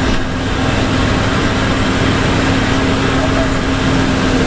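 Intercity bus's diesel engine droning at steady revs under load on an uphill grade, heard from inside the cab, with a constant hiss of tyres on the wet road and rain.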